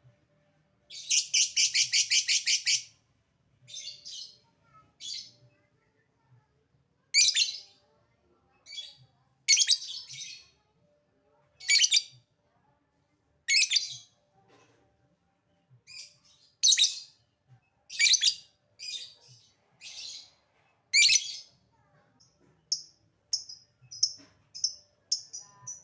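Lovebird calling: a long, fast chattering trill about a second in, lasting about two seconds, then loud shrill calls every second or two, and a quick run of short high chirps near the end.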